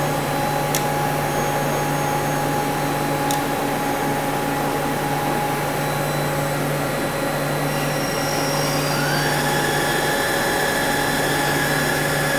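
Mazak CNC lathe running with a steady machine hum as the tool turret is brought up to the face of the part. About nine seconds in, a whine rises and then holds at one pitch as the spindle spins up and turns the chuck.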